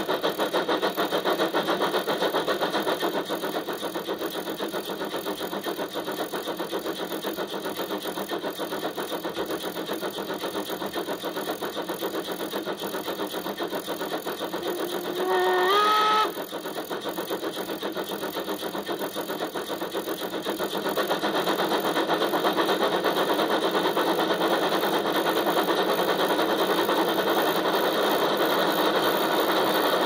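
Digital steam-locomotive sound from an ESU LokSound 5 micro decoder in a Weinert Baureihe 86 model, played through its small speaker: steady, even chuffing that gets quieter a few seconds in and louder again about two-thirds of the way through. About halfway through, a steam whistle sounds for about a second and a half, stepping up in pitch near its end.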